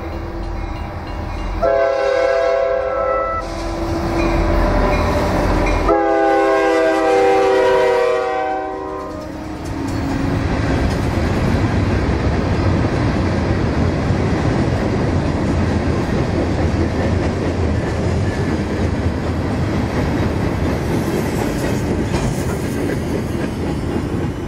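Norfolk Southern diesel freight train sounding its multi-note horn in several blasts, the last and longest ending about nine seconds in, as it approaches. Then its loaded steel coil cars and gondolas pass close by with a steady rumble and wheel clatter on the rails.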